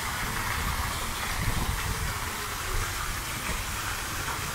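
Steady city street ambience: the hiss of traffic with a low, uneven wind rumble on the microphone.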